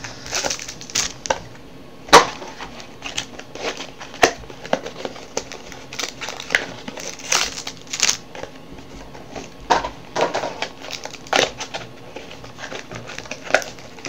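Plastic trading-card pack wrappers crinkling and crackling as they are handled and pulled open, in irregular sharp crackles; the loudest comes about two seconds in.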